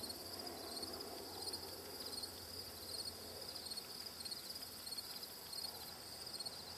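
Insects chirping: a steady, high-pitched, pulsing trill repeated over and over.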